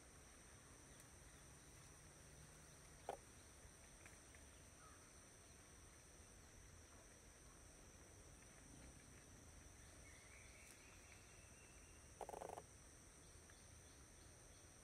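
Near silence: faint outdoor background with two steady high-pitched tones throughout. Two short distant animal calls stand out, a brief one about three seconds in and a louder half-second one about twelve seconds in.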